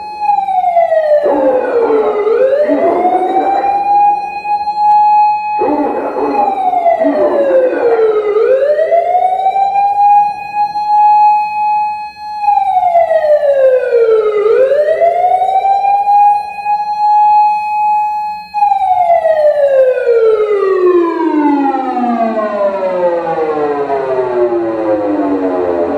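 Osaka Siren MK-10 electronic siren amplifier sounding a wailing siren through its speaker. The tone falls and sweeps back up about every six seconds, then slides down in one long fall and stops. A rasping noise rides over the first two falls.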